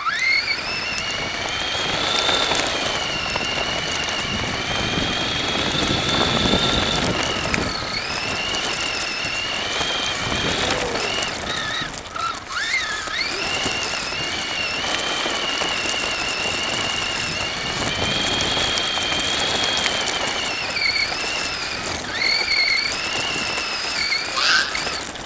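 Remote-control car's motor whining high as it drives over grass, its pitch rising and falling with speed, with dips around the middle and again near the end, over a steady rough rumble.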